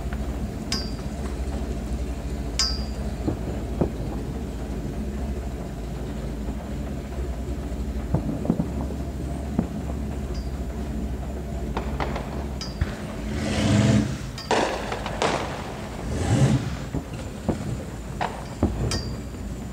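Distant fireworks going off: sharp single cracks every few seconds, and two louder rumbling bursts about two-thirds of the way through, over a steady low mechanical hum that fades out after about twelve seconds.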